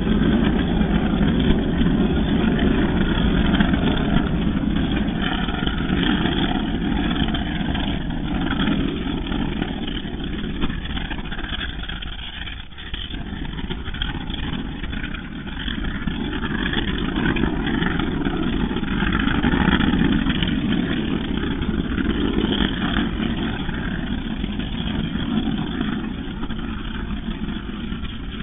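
Infrasound from Tungurahua volcano's sustained explosive eruption, sped up 200 times into hearing range. It comes out as continuous noise resembling jet noise from flight vehicles. It dips briefly about twelve seconds in, then builds again.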